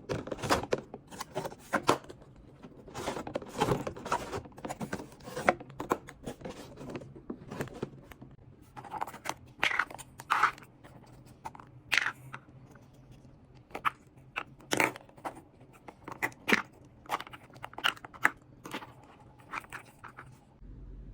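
Packaging and plastic parts of a toy gacha machine being handled and unwrapped: rustling and tearing with many irregular sharp clicks.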